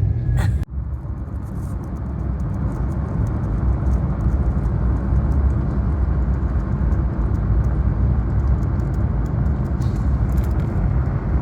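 Steady low road and tyre rumble inside the cabin of a small electric car as it drives, with no engine note, and a brief sharp dip just under a second in.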